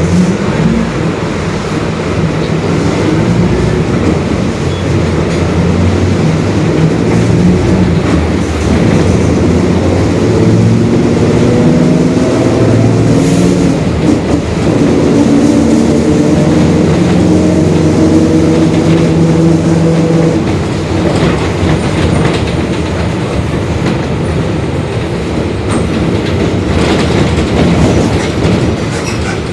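Mercedes-Benz OF-1721 Bluetec 5 bus under way, its diesel engine running with a growling, whining differential whose pitch climbs over the first half and then holds steady before fading.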